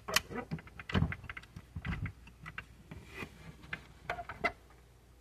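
Small irregular clicks and knocks of a 1/24-scale Honda Civic Type R model car being handled by fingers as its hinged bonnet is lifted open, with a couple of duller thumps among them.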